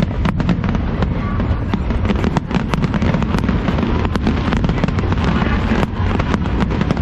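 Large fireworks display: rapid, overlapping bangs and crackles, several a second, over a constant low rumble.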